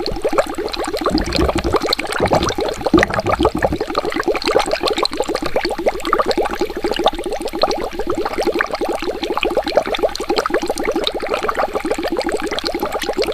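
Water bubbling continuously: a dense stream of bubbles, each a quick rising blip, many per second. There are a few low thumps between about one and three seconds in.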